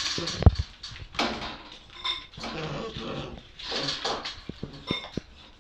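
Seven-week-old bull terrier puppies play-fighting: repeated scuffling bursts with a couple of short high squeals, a thump about half a second in, and a few quick knocks of paws and bodies on the floor near the end.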